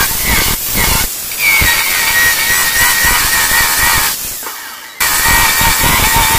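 Corded electric chainsaw running, its chain cutting shallow grooves into a wooden tabletop slab: a steady motor whine over the hiss of the cut. About four seconds in the saw winds down, and it is back at full speed a second later.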